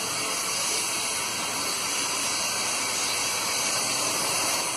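Steady, even hiss of outdoor background noise, strongest in the high range, with no distinct events.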